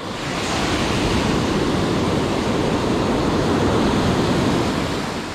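Ocean surf: a wave breaking and its whitewater rushing up the beach, swelling about half a second in and easing off near the end.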